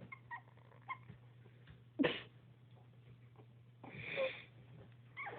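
Puppies making small squeaky yips and whines, with a louder yip about two seconds in and a longer, noisier cry about four seconds in, over a steady low hum.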